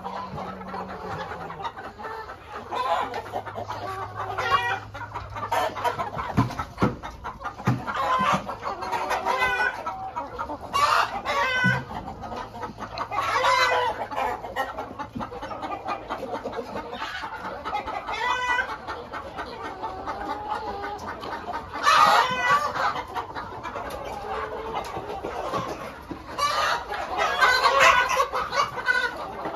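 A flock of domestic chickens, hens and roosters together, clucking and calling continuously, with several louder calls standing out.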